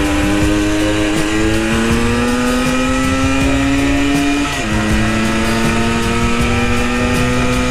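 Vintage Yamaha two-stroke enduro accelerating under load on a ride, its engine pitch climbing steadily and dropping sharply at two upshifts, about a second in and again about four and a half seconds in. The engine is running on a 210 main jet and pulling well.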